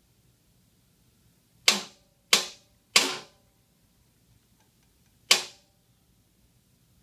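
Four sharp metallic clanks, each ringing briefly, as the distributor is dropped and worked into a small-block Chevy V8. Three come about two-thirds of a second apart, starting just under two seconds in, and a fourth follows about two seconds later.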